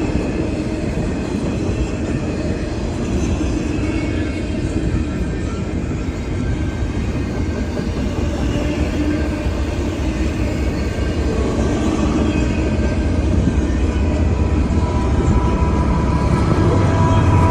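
Intermodal freight cars rolling past on the rails: a steady rumble of wheels on track with faint high squeals. The sound grows louder near the end.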